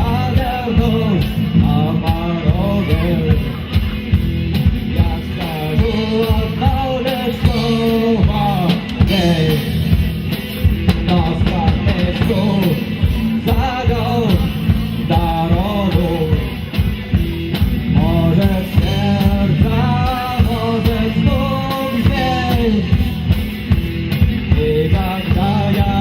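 Rock band playing live: drum kit, bass and electric guitars, with a wavering lead melody line over them throughout.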